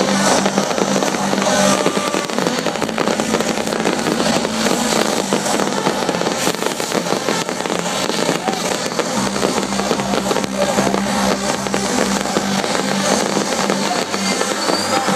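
Large fireworks display: a dense, continuous crackling and popping of many pyrotechnic shells, with music from the stage running underneath.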